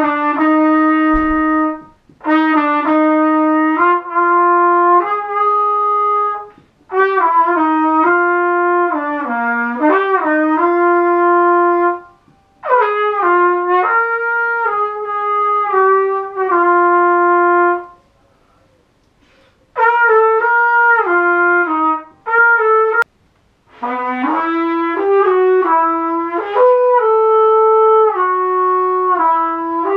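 Solo trumpet playing a melody in short phrases of held notes, with brief breaks for breath between phrases and a longer pause a little past the middle.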